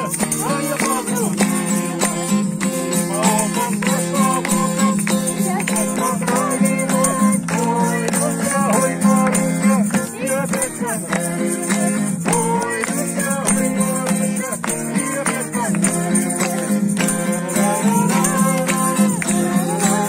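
Group singing around a campfire to a steady musical accompaniment, with a rattling hand-percussion beat.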